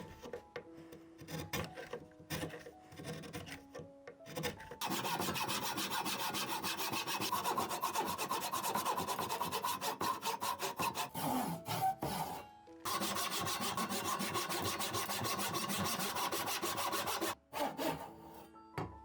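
A hand tool rasping and cutting wood in fast, even strokes, in two runs with a short pause between them, over background music.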